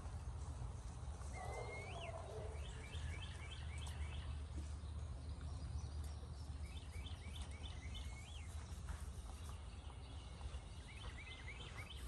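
A songbird singing a phrase of quick repeated chirps three times, a few seconds apart, over a steady low hum.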